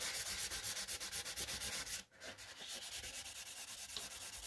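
Hand wet sanding with 800-grit wet-and-dry paper and soapy water on a primed model aircraft cowl, in quick, even back-and-forth strokes of about eight a second. The strokes stop for a moment about two seconds in, then carry on.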